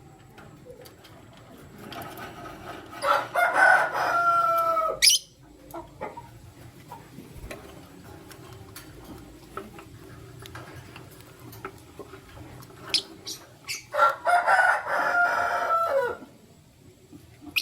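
A rooster crowing twice, each crow about two seconds long and dropping in pitch at the end, with a few short high chirps in between.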